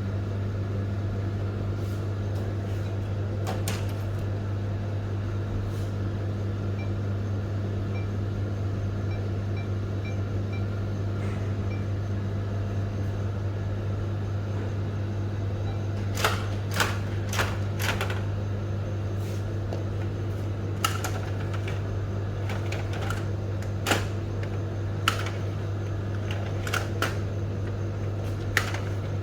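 Steady low machine hum from a Canon imageRUNNER ADVANCE photocopier, with a few faint short beeps about a third of the way in and scattered sharp clicks and taps, mostly in the second half.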